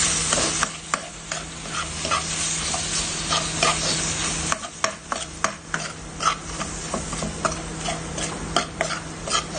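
Tomato-onion masala with chili, turmeric and coriander powders sizzling in a frying pan while a spoon stirs it, scraping the pan in many short irregular strokes. The spice powders are being fried into the base.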